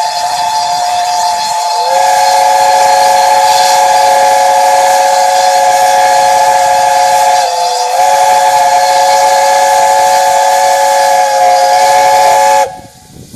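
Steam whistles of LNER A4 Pacific 60007 Sir Nigel Gresley and GWR King class 6023 King Edward II blowing together in a loud, steady chord of several notes, the close of a minute-long whistle. A lower note joins about two seconds in, the notes dip briefly about seven and a half seconds in, and all stop together shortly before the end.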